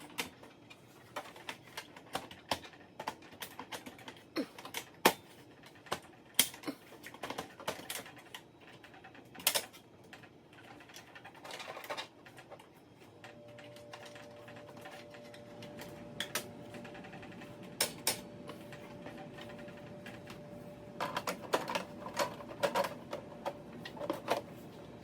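Irregular clicks and knocks as a cut sheet feeder is fitted onto an Apple (Qume) daisy wheel printer, parts being set in place and latched. A faint steady hum with a low tone starts about halfway through and continues under more clusters of clicks near the end.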